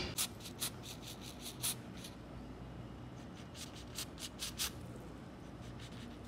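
Aerosol antiseptic wound spray going off in short hisses, dabbed onto a kitten's bitten ear. One run of quick bursts comes near the start and another about four seconds in.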